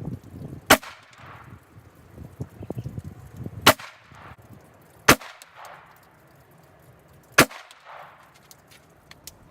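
Four single shots from a Glock 43 9mm pistol, irregularly spaced about one to three seconds apart, each followed by a short fading echo.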